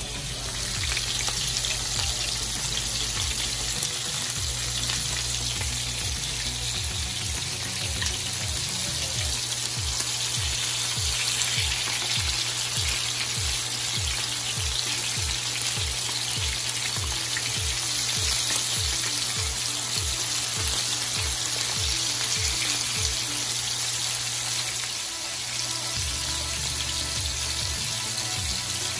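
Beef steaks searing in butter in a hot grill pan: a steady, dense sizzle. Background music with a regular low beat plays underneath.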